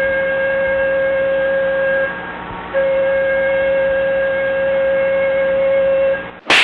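A horn sounding two long, steady blasts on one unchanging pitch, the second longer than the first, with a short break about two seconds in.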